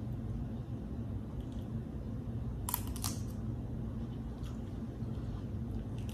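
Snow crab being eaten close to the microphone: a few sharp clicks and cracks about three seconds in, then fainter single ticks, over a steady low hum.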